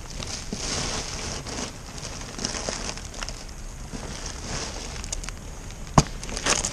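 Rustling and crackling of packaging being handled around a used gearbox, swelling and fading, with a few light clicks and one sharp knock about six seconds in.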